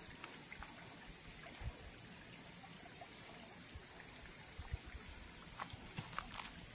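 Faint pondside ambience: soft scattered ticks and small water splashes over a steady high hiss, the ticks coming more often near the end.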